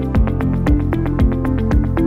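Background electronic music with a steady beat, about two beats a second, over a moving bass line.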